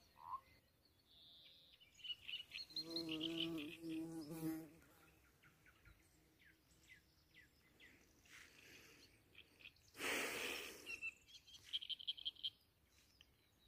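Faint pond-side ambience: a flying insect buzzes past for about two seconds, starting nearly three seconds in. Small bird chirps come in short runs around it and again near the end. A brief rush of noise comes about ten seconds in.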